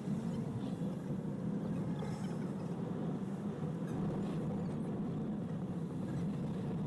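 Steady engine hum and road noise inside a Toyota HiAce van's cabin while it drives along the highway.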